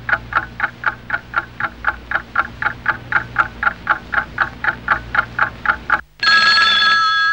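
A regular pulsing sound, about four short pulses a second, over a low steady hum. About six seconds in it cuts off and a loud sustained chord of steady tones starts suddenly.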